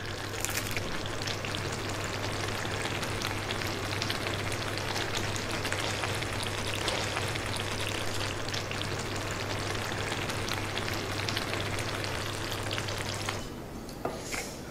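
Chicken curry gravy simmering and sizzling in a kadai on a gas stove: a steady hiss with a low hum under it. It cuts off about a second before the end, leaving a couple of light clicks.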